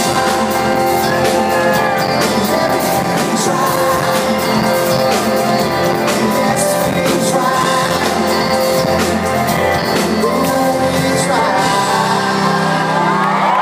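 Live pop band with a male lead singer performing, heard from within the audience with drum hits and sung lines over the band. Near the end the band holds a closing chord as the song ends.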